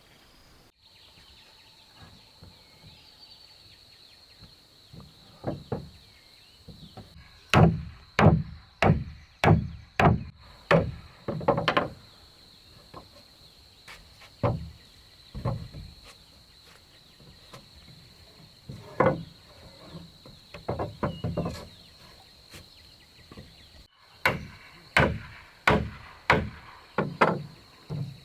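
Repeated hard blows of a tool on wood, in runs of quick strikes about two a second with pauses between. A steady faint high buzz runs under them.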